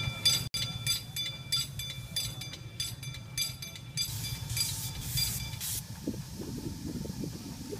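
Live-steam scale locomotive with steam up, hissing: a fast run of ringing metallic clinks for the first few seconds, then a burst of steam hiss about four seconds in.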